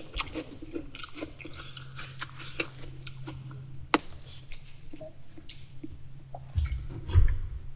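Close-miked chewing and eating, with many small wet mouth clicks and smacks. There is a sharp click about four seconds in and a few heavier low thumps near the end.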